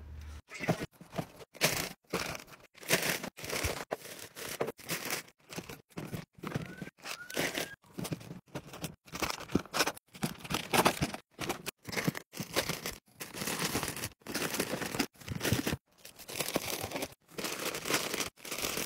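Plastic and foil candy packaging crinkling and rustling in short, irregular bursts as packs are handled and set into a cardboard box.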